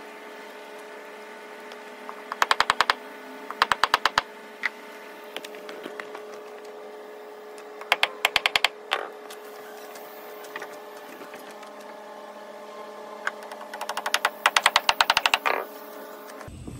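Quick, light hammer taps against a wooden railing post fitted with steel cable, in four rapid runs of about ten taps a second, the last and longest near the end.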